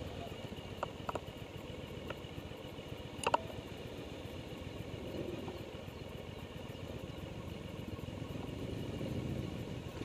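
Land Rover Defender and a motorcycle driving round a mountain-road hairpin: a steady low engine rumble that grows a little louder toward the end, with a few light clicks in the first few seconds.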